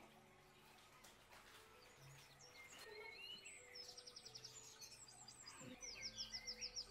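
Faint birdsong: scattered chirps and a fast high trill of about ten notes a second, heard twice, the louder one near the end.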